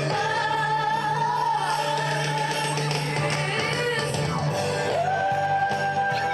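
Music with singing, made of long held notes over a steady low tone.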